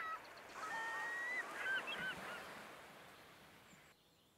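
Seabirds crying at a sea cliff: a few short calls, then a longer drawn-out cry, with more short calls around two seconds in. The calls fade out over the next couple of seconds.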